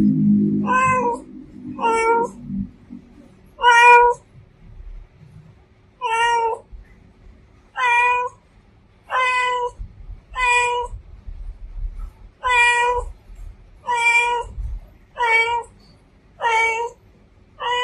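Female domestic cat meowing over and over: about a dozen short meows, one every second or two.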